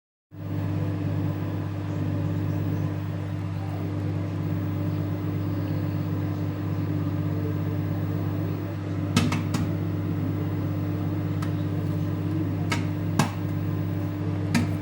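Microwave oven running with a steady hum while popcorn heats inside. From about nine seconds in, the first kernels pop: a handful of sharp, scattered pops.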